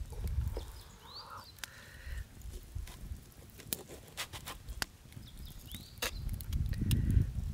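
Kitchen knife slicing a seared block of beef on a cutting board, the blade clicking against the board several times as each slice comes off. Two short chirps come about a second in and about six seconds in.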